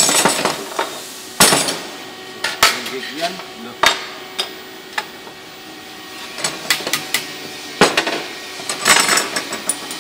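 Hammer striking an aluminium alloy bar on a metal workbench as it is bent: about six sharp, ringing metallic blows at irregular intervals, with lighter taps between.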